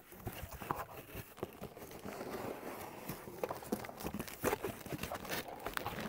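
Packing wrap crinkling and rustling as a carefully wrapped parcel is unwrapped by hand, with many small clicks and taps.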